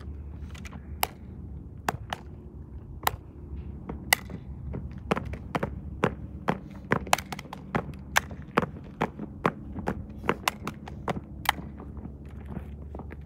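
Shoes striking asphalt in an unarmed drill duo's routine: sharp stomps and heel clicks, spaced about a second apart at first, then coming several a second from about five seconds in as the pair march in step.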